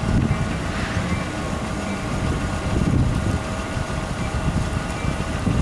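CSX freight train cars rolling past on the rails with a low rumble, mixed with gusts of wind buffeting the microphone.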